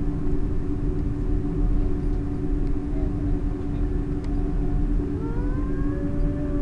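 Airbus A330 jet engines at taxi power, heard inside the cabin: a steady hum over a low rumble. About five seconds in, a separate tone rises and then falls away.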